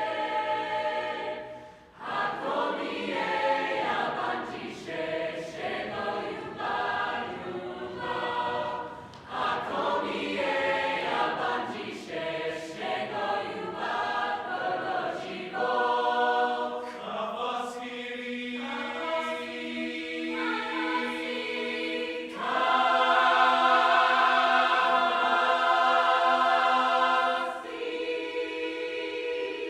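Mixed youth barbershop chorus singing a cappella in close harmony, with moving parts giving way to long sustained chords; the loudest chord is held for about five seconds near the end before dropping away.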